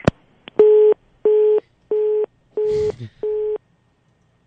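A telephone line clicks, then a busy tone sounds: five short beeps at one steady pitch, about one and a half per second, the sign that the call has been cut off. A brief crackle of line noise comes near the fourth beep.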